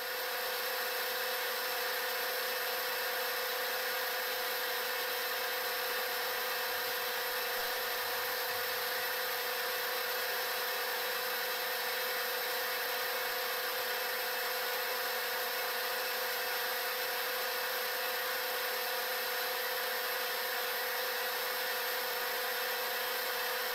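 Vertical milling machine running with a quarter-inch four-flute end mill turning at 300 RPM: an even, unchanging mechanical hum with a steady tone.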